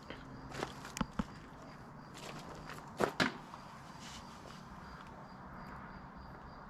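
A few sharp knocks and taps from hands-on building work, the loudest a pair about three seconds in, over a faint steady background hum.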